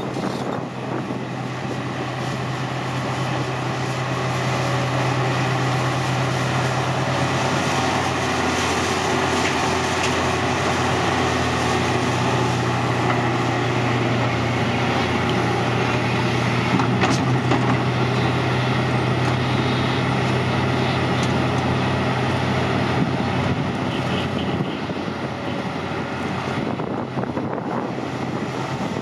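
Hitachi Zaxis 520 excavator's diesel engine working under load while it digs and swings its bucket, a steady drone that grows louder a few seconds in and eases off near the end.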